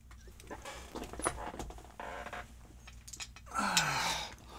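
Faint clicks and rustling as small metal lock parts, a cylinder housing among them, are handled over a parts tray, with a louder stretch of handling noise near the end.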